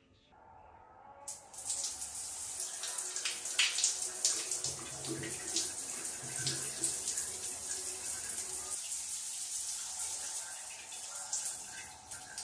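Running water in a bathroom: a steady splashing hiss that starts suddenly about a second in and eases off near the end.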